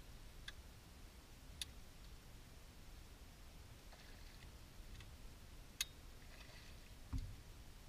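Quiet faint splashing of a hooked striped bass at the surface beside an aluminium boat, with a few sharp clicks and one low thump on the boat about seven seconds in, the loudest sound.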